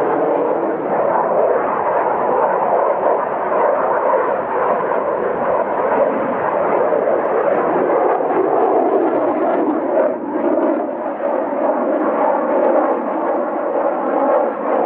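Loud, steady jet noise from a Mikoyan MiG-29M OVT's twin Klimov RD-33 turbofans during a low display pass, with a whining tone coming through in the second half.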